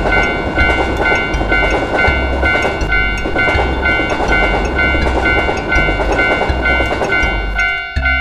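Japanese railroad crossing alarm bell ringing its steady, repeating "kan-kan" while a train passes with a rumble and a rhythmic clatter of wheels over the rails. The train noise drops away near the end while the bell keeps ringing.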